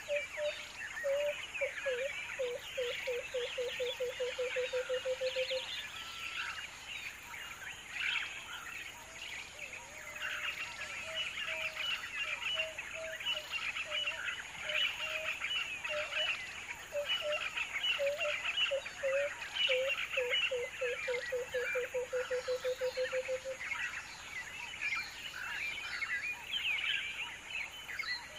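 Wild birds calling: a low call of spaced notes that quickens into a rapid run of short notes, heard twice, over constant high chirping.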